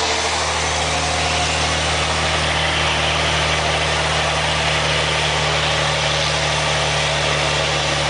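Scania 112 truck's six-cylinder diesel engine idling steadily.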